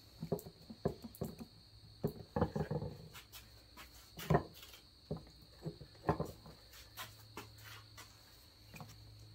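Irregular clicks and knocks as the split halves of a Peerless 206 transaxle case are handled and worked apart on a workbench, two of them louder about four and six seconds in, over a faint steady hum.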